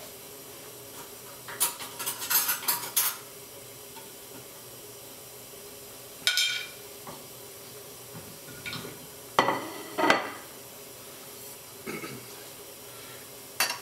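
Kitchen clatter of metal pans and utensils being handled: a quick run of clinks about two seconds in, a single ringing metallic clank about six seconds in, and heavier knocks around nine to ten seconds as a pan is set down, over a faint steady hum.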